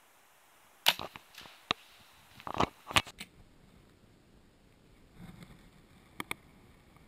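Several sharp clicks and knocks with some rustling, bunched in the first half, then a pair of quick clicks near the end: handling noise of clothing and gear close to the microphone.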